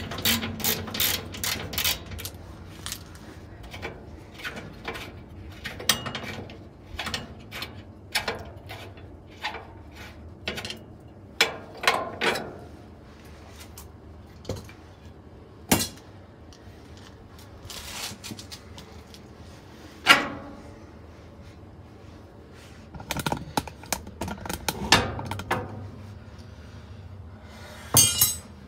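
Ratchet wrench clicking as a bolt is backed out of a washing machine's sheet-metal base, then irregular metallic clanks and clinks of loose parts and tools being handled, with sharper knocks about 16, 20 and 28 seconds in.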